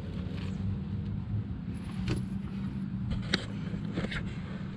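A steady low engine hum, with a few faint light taps.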